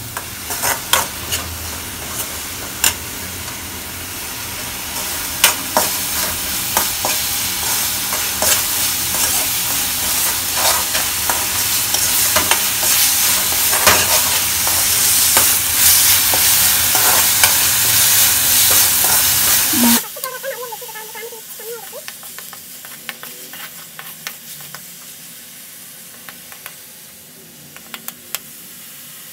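Ground onion paste sizzling in hot oil in a metal kadai while a spatula stirs and scrapes it, with many sharp scraping clicks against the pan. The sizzle cuts off suddenly about two-thirds of the way through, leaving quieter frying and occasional scrapes.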